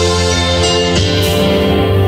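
Music played loud over a large sound system: sustained chords over a deep bass, changing to new notes about a second in.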